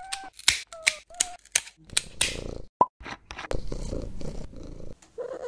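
Pet nail clippers snipping a cat's claws: a run of sharp clicks through the first half, with a few short squeaky mews from the cat between them. Later comes a low steady rumble lasting about a second and a half, then another short mew near the end.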